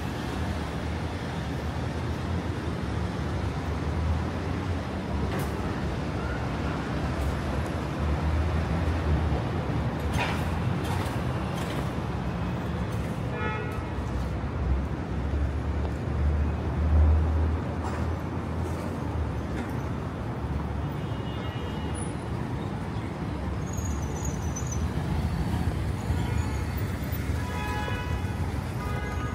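Street ambience dominated by steady road traffic, with a deep rumble that swells louder about halfway through as a vehicle passes. Brief faint voices come through twice.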